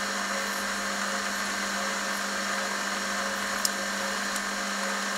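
Warco WM180 mini lathe running steadily with a steady hum while a parting tool cuts off a copper bar, with a faint tick about three and a half seconds in.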